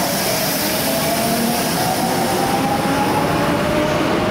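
Subway train accelerating along an underground platform: a steady rumble of wheels on the rails under a motor whine that slowly rises in pitch.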